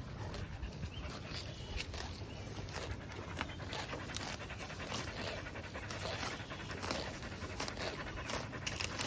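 Cattle grazing at close range: a steady run of crisp tearing and crunching as grass is ripped up and chewed, with heavy breathing through the nose.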